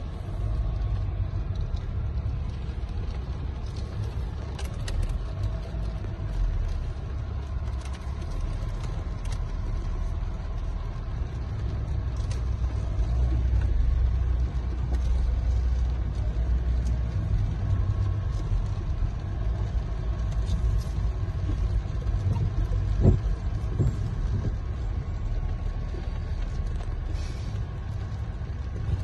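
Car interior noise while driving slowly over a muddy, broken gravel road surface: a steady low rumble of engine and tyres, with a few light knocks and one sharper thump about three-quarters of the way through.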